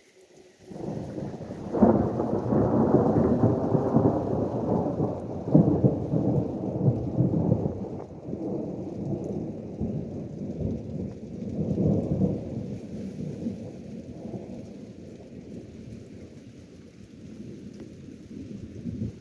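Thunder: a sharp crack about two seconds in, then a long low rumble rolling on with further swells, slowly dying away.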